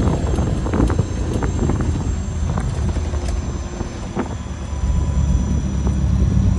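Steady low engine and road rumble from a 1967 Ford Thunderbird being driven, with wind noise and a few light clicks and ticks. The rumble grows a little louder near the end.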